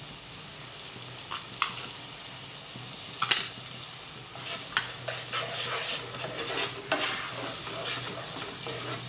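Steel spoon stirring and scraping a thick onion-tomato masala paste frying in a pot, the paste sizzling steadily underneath. Short scrapes and clinks of the spoon against the pot come every second or so, the sharpest about three seconds in.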